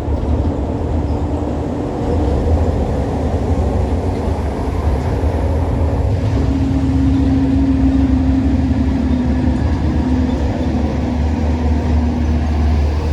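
Heavy vehicle's diesel engine pulling hard up a steep climb, a loud steady low rumble with a faint droning tone through the middle.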